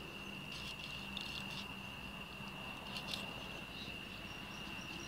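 A steady, high-pitched trill of night insects, with a few short scrapes of a kitchen knife working a snakehead fish on a wooden cutting board, about half a second in, around a second and a half in, and again at about three seconds.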